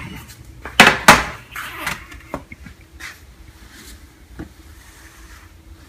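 Two sharp knocks about a quarter-second apart about a second in, then a few faint clicks over a faint steady hum.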